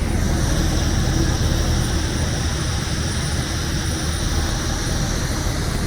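Steady jet airliner noise: an even low hum with a steady hiss above it, unchanging throughout.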